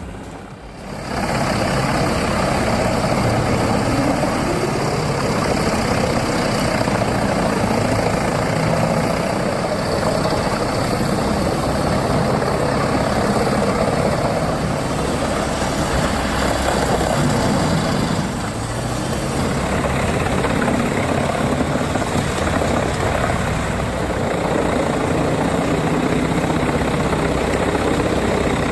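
Heavy diesel machinery running steadily and loudly, with a brief dip about two-thirds of the way through.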